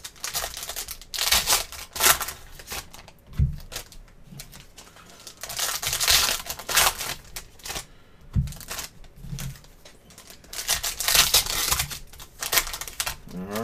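Foil trading-card pack wrappers being torn open and crinkled in three bouts of crackling. Two dull knocks come between them.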